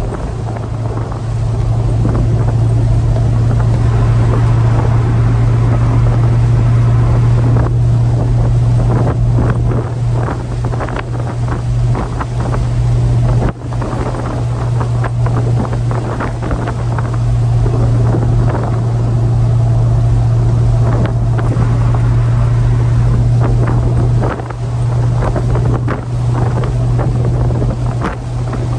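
1965 Pontiac GTO's V8 engine running at a steady low note, with a few brief dips, over a rushing noise like wind on the microphone.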